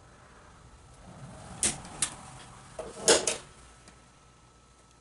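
Center punch striking hole marks into a steel fire door: four short, sharp strikes, two about a second and a half in and two more close together about three seconds in, with faint handling noise between.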